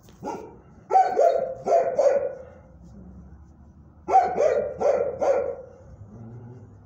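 A dog barking in two runs of four or five sharp barks, the runs about three seconds apart.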